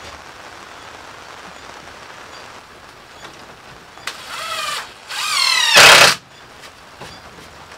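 Cordless DeWalt drill driving screws into a wooden frame: the motor whines up in two short runs, about four and five seconds in, the second one loudest at its end.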